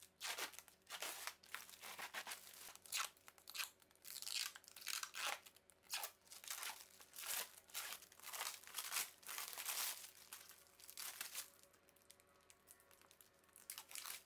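Clear protective plastic film being peeled off a pegboard panel: a run of irregular crackling, tearing rustles, thinning out near the end.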